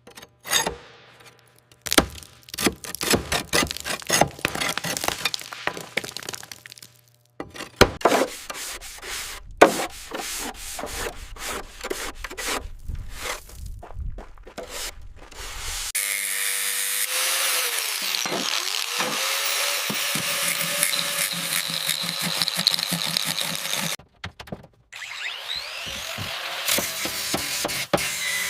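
Hand-tool work on an airframe, in separate cuts: dense scraping and knocking, then about eight seconds of a steady hissing noise with a wavering tone, then more short knocks.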